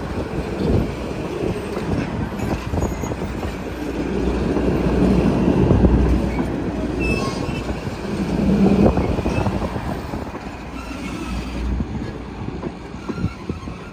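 Railroad passenger coaches rolling past close by: a steady rumble of steel wheels on the rails with many clicks over the rail joints, swelling twice as cars go by.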